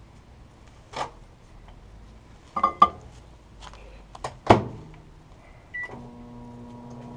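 Microwave oven being set going: a few clicks and knocks, the loudest about four and a half seconds in, then a short keypad beep and the oven's steady hum as it starts running near the end.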